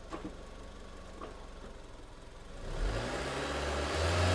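A 2005 Honda Civic's 1.7-litre four-cylinder engine idles quietly, then about three seconds in it is loaded up against the brakes in gear: its note rises and holds as a louder, steady drone. The load is applied to bring on the misfire the car has under heavy load.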